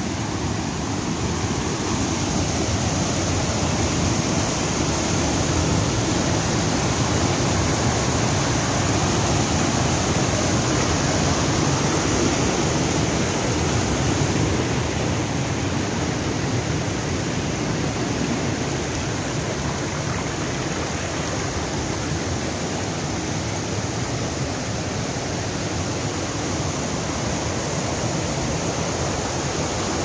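River water rushing over rock cascades and small falls: a steady, unbroken roar of white water.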